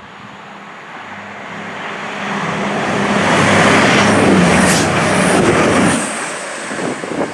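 A diesel train passing through the station at speed without stopping: its sound builds over a few seconds, peaks, and drops off sharply about six seconds in as it goes by.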